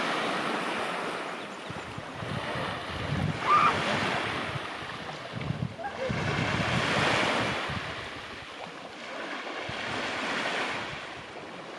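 Sea waves washing onto the beach, swelling and fading about every three to four seconds, with wind buffeting the microphone.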